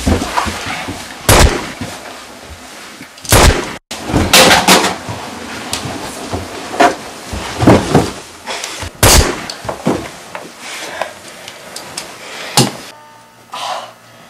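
A string of loud, sharp bangs and thuds at irregular intervals, about eight in all.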